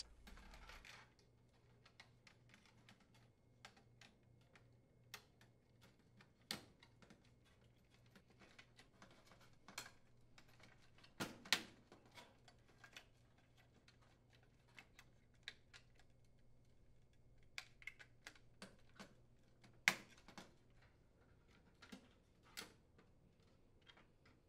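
Faint, scattered clicks and small knocks of plastic wire-harness connectors being handled and pushed onto the terminals of an electric range's control board, with a few sharper clicks a little before the middle and about four-fifths of the way through.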